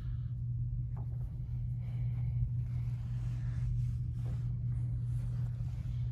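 A steady low hum, with a few faint brief rustles.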